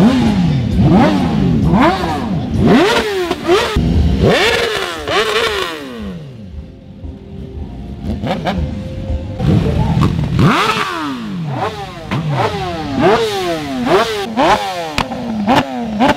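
BMW S1000RR inline-four superbike engines revved in sharp throttle blips, the pitch shooting up and dropping back again and again. There is a quieter lull of about three seconds in the middle, then quick blips at about two a second near the end.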